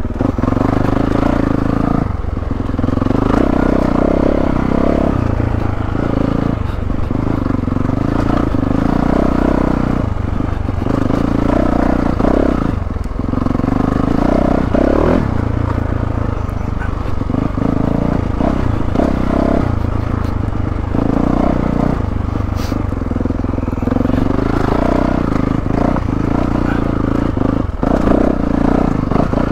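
2022 Yamaha YZ450F's 450cc single-cylinder four-stroke engine, heard on board, revving up and down with the throttle as the dirt bike rides a rough trail. Brief knocks and clatter come in over the bumps.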